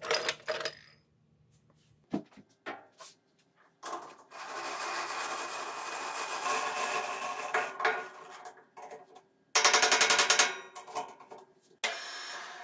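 Steel pipe and bar offcuts clinking as they are handled in a wooden crate, then mechanical noise from a metal lathe: several seconds of steady running and, near the end, a brief loud rapid rattle.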